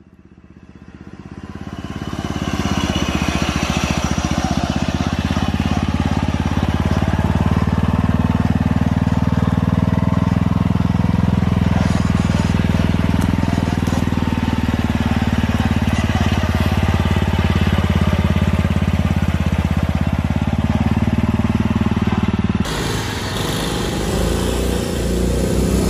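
Small engine of a modified off-road riding lawn mower running steadily under load, fading in over the first couple of seconds. Near the end the sound cuts to another recording of mower engines running.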